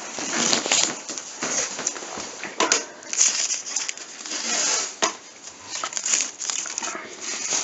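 Painter's tape being pulled off the roll in irregular rasping strips and pressed down, with a few sharp clicks.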